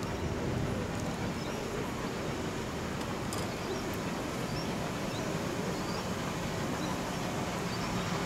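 Steady low outdoor rumble, with small birds chirping faintly now and then.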